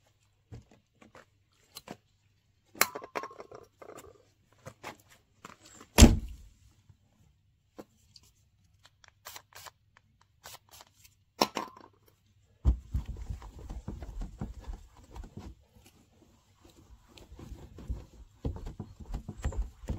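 Handling clicks and knocks with one sharp thump about six seconds in, then steady spraying and rubbing from past halfway as an aerosol spray polish is applied and a microfiber cloth is wiped over a Citroën 2CV's painted steel body panel.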